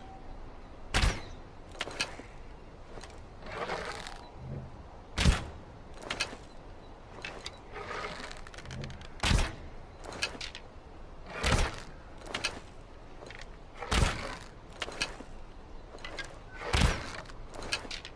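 Longbow being shot again and again: six loud, sharp thumps of the string's release, two to three seconds apart, each followed within about a second by a fainter knock, with softer rustling swells between shots.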